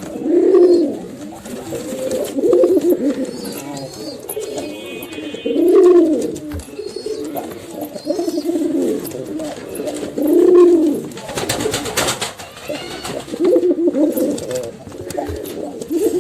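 Pigeons cooing repeatedly, each coo a low rising-and-falling call, with about five loud coos a few seconds apart among softer cooing. A brief noisy burst comes about twelve seconds in.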